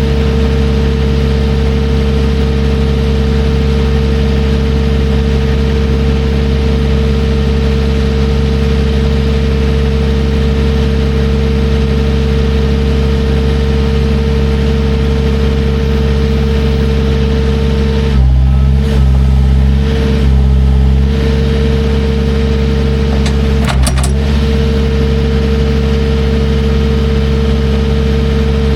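A heavy equipment engine running steadily with a constant whine over it. About 18 seconds in, the note drops and the low end swells twice, as if the machine is taking a load, and it dips once more briefly around 24 seconds.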